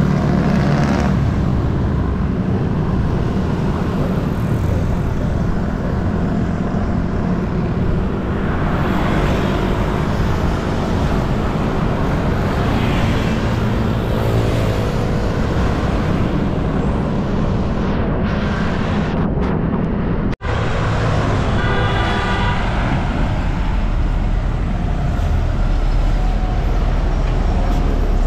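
Road traffic heard from a bicycle on a highway: cars and trucks running past, with steady engine and tyre noise over a loud low rumble.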